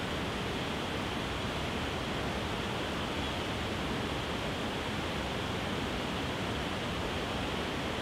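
Waterfall cascading over rock ledges: a steady, unbroken rush of white water.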